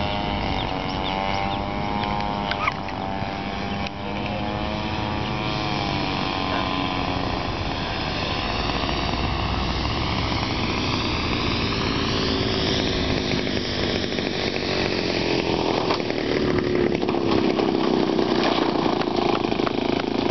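Two-stroke 60cc RCGF gas engine of a large radio-controlled P-51 Mustang model running in flight, its pitch wavering as the model passes and turns overhead. About two-thirds of the way through, the pitch falls and settles to a lower, steady note as the model comes in to land.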